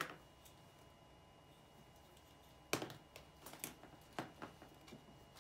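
Light clicks and taps of hard plastic action-figure parts being handled while the jetpack is fitted, with a sharp click a little under three seconds in and a few smaller ones after it.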